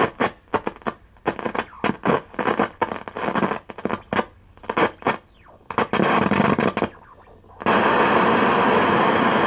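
Speaker of a 1960s Sylvania tube colour TV putting out choppy bursts of static that cut in and out as the tuner is worked, with a brief falling whistle midway. About eight seconds in it settles into a steady loud hiss of static. The dropouts are the sign of dirty tuner contacts, which the owner thinks need cleaning.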